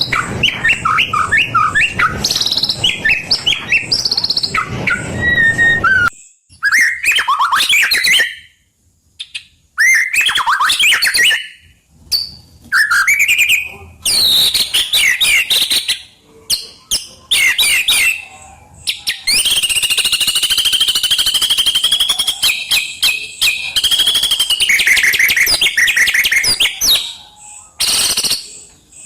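White-rumped shama singing: varied whistled phrases broken by short pauses, with a long rapid trill in the second half.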